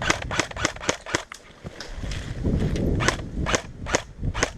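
Airsoft guns firing quick semi-automatic shots, sharp cracks coming about four a second in irregular runs, with a low rumble briefly about halfway through.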